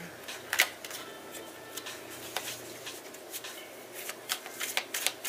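Tarot cards being shuffled by hand: irregular soft clicks and slaps of the cards, a sharper snap about half a second in and quicker clicks in the second half.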